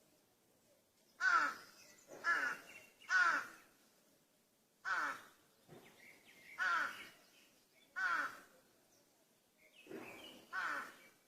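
Crow cawing: about eight caws, each about half a second long and falling in pitch. The first three come about a second apart, the rest are more spaced out, and one faint caw comes shortly before the last.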